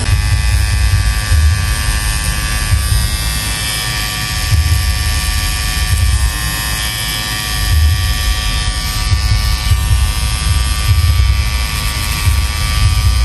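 Pen-style rotary tattoo machine running while needling skin: a steady electric buzz with fine high tones, over a fluctuating low rumble.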